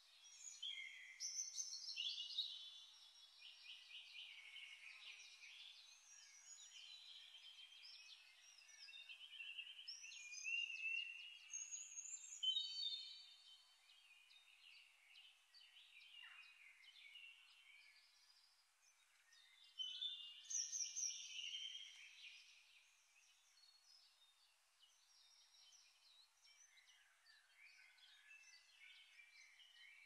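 Faint birdsong: several birds chirping and trilling in bursts, with quieter stretches between.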